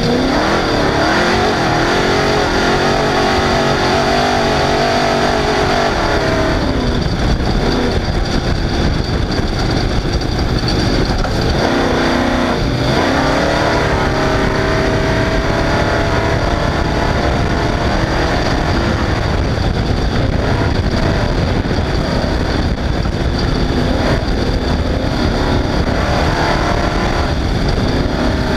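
Off-road race vehicle's engine running hard at racing speed. Its pitch climbs and drops several times as it revs up and eases off, over a constant loud wash of road and wind noise.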